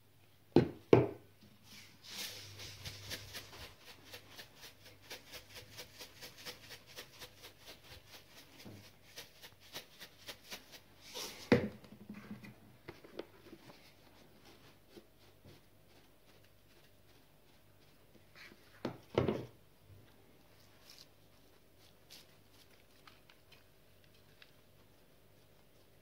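A spice shaker shaken rapidly over a pot of food, a quick rattle of about four shakes a second lasting several seconds. A few sharp knocks come before and after it, one near the start, one just after the shaking stops and another about two thirds of the way in.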